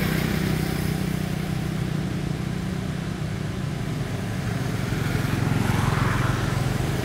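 A motor vehicle engine running, a steady low hum that dips a little midway and grows louder again near the end.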